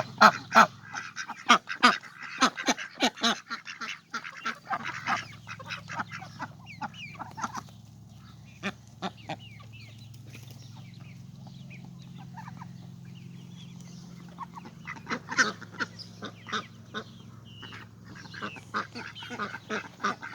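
Ducks quacking and honking in quick runs of calls, busiest over the first several seconds and again about fifteen seconds in, with a quieter spell between.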